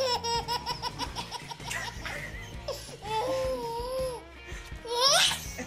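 Baby laughing hard: a quick run of short laughs, then a long wavering squeal, and a rising shriek of laughter about five seconds in, the loudest moment.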